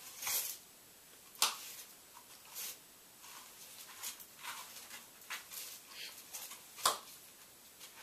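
Cardboard box scraping and rustling on a wooden floor as a cat pushes into it, in short irregular scuffs, with a sharp knock about a second and a half in and a louder one near the end.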